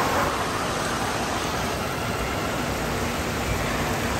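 Steady rush of running water, from sheets of water pouring into a water slide's exit run and from splash-pad fountains spraying.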